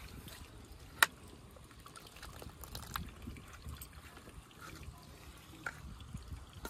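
Liquid trickling from a plastic bottle into a steel bowl of fishing bait, faint, with one sharp click about a second in.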